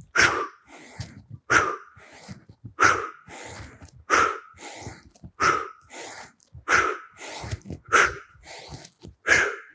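A man breathing hard and in rhythm during big arm swings. A forceful exhale comes with each downward swing, about every 1.3 seconds, with quieter breaths in between.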